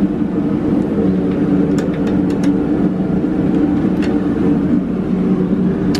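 Steady mechanical hum of several held tones inside a submarine's steel compartment, with a few faint clicks about two and four seconds in.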